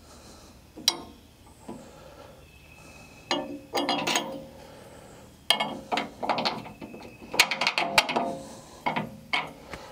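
Steel hook-and-D-ring bracket being worked onto a loader bucket's steel edge: a string of sharp metal knocks, clinks and scrapes with brief ringing, coming in clusters.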